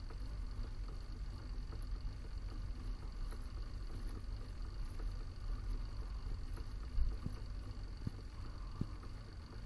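Mini lathe running slowly with its spindle turning: a steady low hum with a faint high whine. There is a single knock about seven seconds in and a few small ticks after it.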